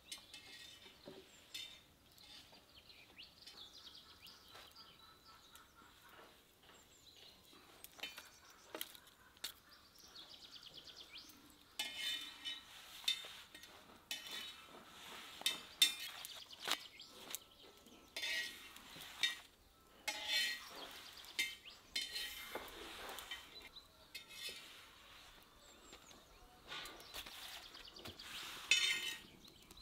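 Scattered light metallic clinks and taps of a long metal skewer against a domed iron saj griddle as thin lavash breads are turned and lifted off.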